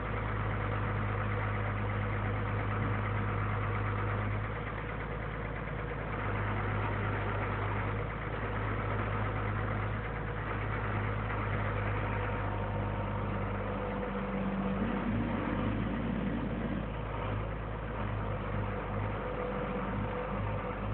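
Truck-mounted crane's engine running steadily, a constant low hum; its note shifts briefly about three-quarters of the way through.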